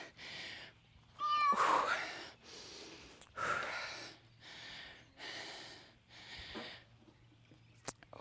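A woman breathing hard from exertion during fast split squats: short, forceful breaths about once a second. A brief high-pitched squeak comes about a second in.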